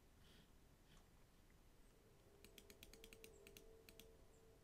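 Faint computer-keyboard keystrokes typing numbers into a form: a quick run of about ten taps between two and four seconds in, over a faint steady hum.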